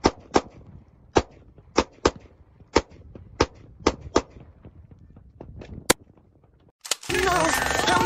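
Handgun fired about ten times in quick, uneven succession, a shot every half second or so, with the last one about six seconds in. About a second later loud electronic music with heavy bass starts.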